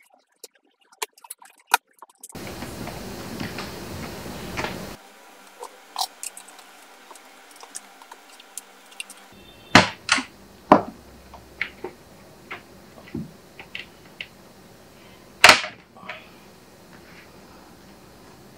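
Small clicks, taps and knocks of a screwdriver and plastic laptop casing parts as the bottom cover is unscrewed and pried open, irregular, with three louder knocks. A stretch of steady hiss in the first few seconds.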